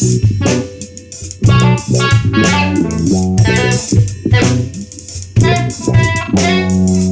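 Instrumental rock band demo: a drum kit with cymbal hits playing under bass guitar and guitar.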